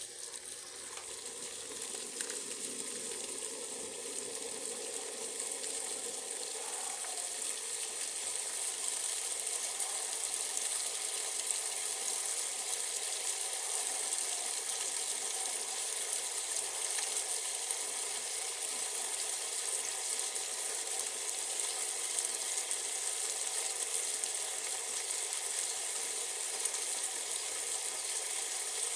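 Brastemp electronic washing machine filling with water: a steady hiss of water spraying into the tub through the inlet valve, growing a little louder over the first several seconds.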